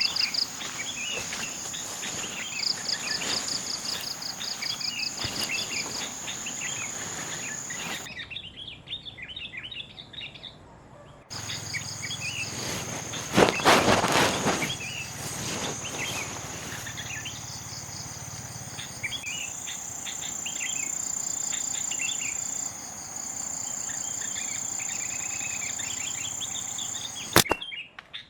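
Forest ambience: a steady high-pitched insect drone with pulsing trills, and birds chirping on and off. About 13 seconds in there is a brief loud burst of noise.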